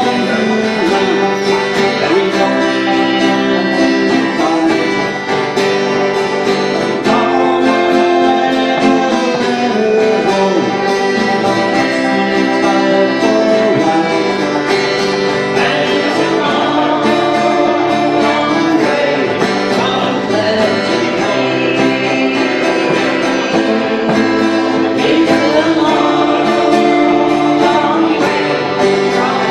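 Live acoustic session music: several guitars strummed together in a folk tune, with a voice singing over them.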